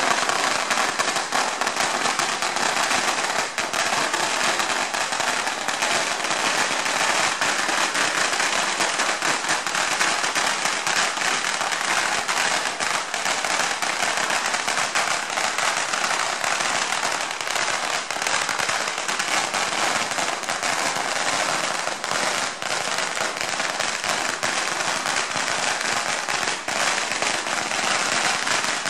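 An 88-foot string of red firecrackers going off in one long, unbroken rapid crackle of bangs.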